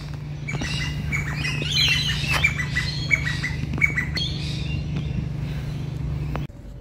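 Birds chirping and squawking, many short calls in quick succession, over a steady low hum that cuts off suddenly near the end.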